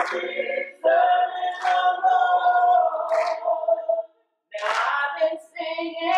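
A small gospel choir singing a cappella, holding long notes, with hand claps on the beat. The singing breaks off briefly about four seconds in, then comes back.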